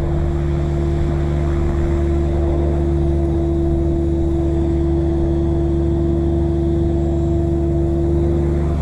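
XL Power 520 radio-controlled helicopter hovering, its rotors and motor giving a steady hum at a constant pitch.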